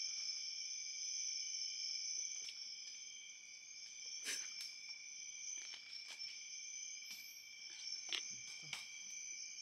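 Steady chorus of night insects, several constant high-pitched tones held together. A handful of short clicks and knocks come from hands working at a wire-mesh live trap.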